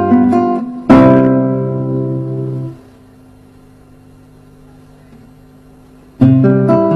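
Nylon-string classical guitar playing a broken-chord (arpeggio) exercise. About a second in it closes on a struck chord that rings out and fades. After a pause of about three seconds, plucked arpeggios start again near the end.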